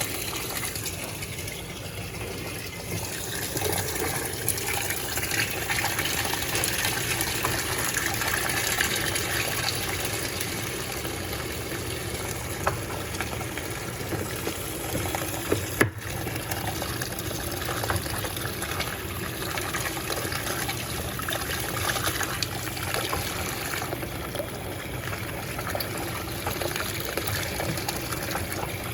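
Water gushing steadily into the tub of an Electrolux Turbo Compacta 7 kg washing machine as it fills, with a sharp click about halfway through.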